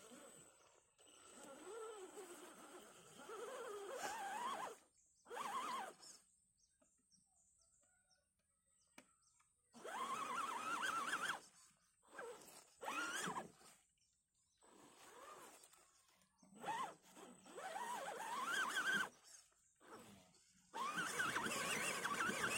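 1:10 scale RGT EX86100 rock crawler's brushed 540 motor and geared drivetrain whining in bursts as it crawls over rocky dirt, the pitch sliding up and down with the throttle and stopping between pushes.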